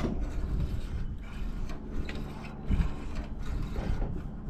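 Ratcheting socket wrench clicking as bolts are worked loose on a welder/generator, with metal clatter and a heavier knock about three seconds in.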